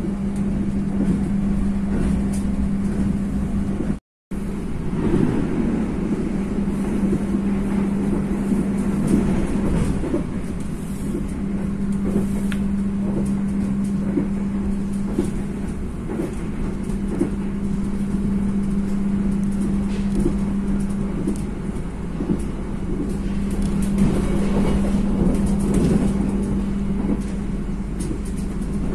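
Passenger train running: a steady low rumble with a constant hum and scattered clicks and knocks. The sound drops out completely for a moment about four seconds in.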